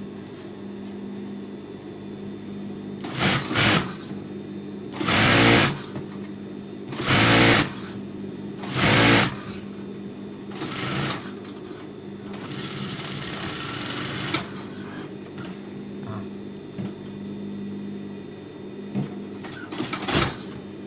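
Industrial sewing machine stitching in short runs, each under a second, about six times, over a steady hum.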